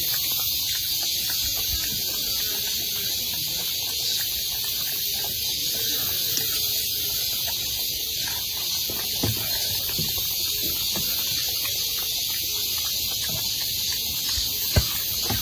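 A steady high-pitched hiss, with a few soft knocks and one sharp click near the end.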